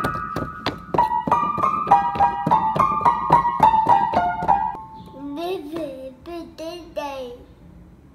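Piano keyboard keys struck one after another, a run of ringing notes and small chords stepping downward, for about five seconds. Then a young child's voice sings and babbles in short rising and falling phrases.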